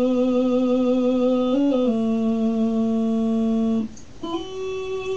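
Talk box held on a sustained keyboard note, the pitch stepping briefly up and back down. It cuts off about four seconds in, and new notes start and step down.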